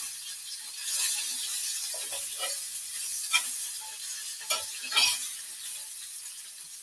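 Tuna steaks with pieces of pepper and onion sizzling in a skillet on a gas stove, with a steady high hiss. A utensil scrapes and taps against the pan at irregular moments as the food is stirred.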